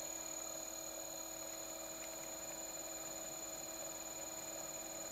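Brushless motor of a home-built tool post grinder, driven by a VESC controller, running steadily at about 1,100 RPM: an even electric hum with faint high whine tones held at constant pitch.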